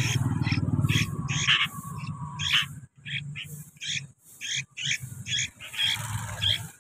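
Sooty-headed bulbuls chirping in short, high calls repeated two or three times a second, over a low rumble that fades out about halfway through.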